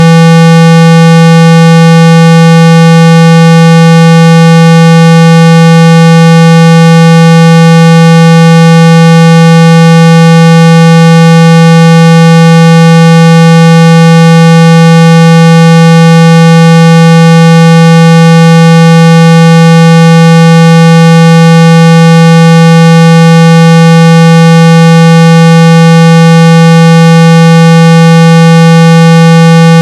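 A steady, unbroken 165 Hz electronic test tone played at near full volume, used to vibrate dust and water out of a phone speaker. It is a loud low hum with a row of higher overtones above it.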